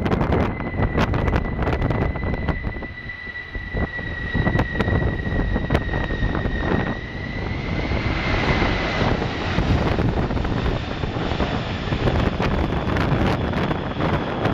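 Jet airliner engines whining steadily overhead, the broad rush of engine noise swelling about halfway through, with strong gusts of wind buffeting the microphone.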